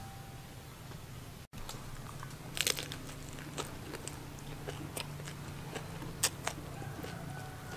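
Close-up eating sounds: crisp bites into a fresh leaf wrap of boiled beef tongue and vegetables, then wet chewing. A sharp crunch comes about two and a half seconds in, followed by scattered clicks of chewing.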